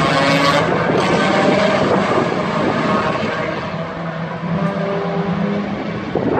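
Race car engines running at speed past the track, several pitched engine notes overlapping, the sound easing off gradually as they pull away.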